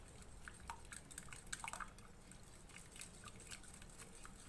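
Egg, milk and chopped-vegetable mixture being beaten in a bowl: faint, irregular light clicks of the utensil against the bowl, about two or three a second, with liquid sloshing.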